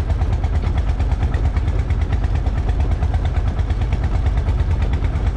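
A fishing boat's engine running steadily, a low, even drone.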